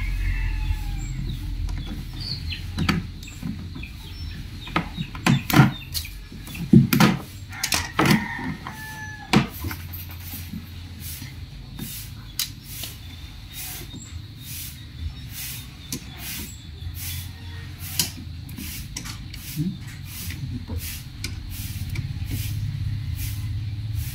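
Flat twin electrical wire being handled and pulled apart by hand at a plastic outlet box: scattered clicks and rubs, loudest between about five and ten seconds in, over a steady low hum.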